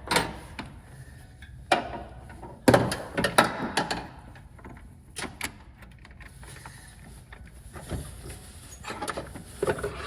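Scattered clicks and knocks of hands and tools handling parts while working on a pickup's new radiator and hoses, busiest about three to four seconds in.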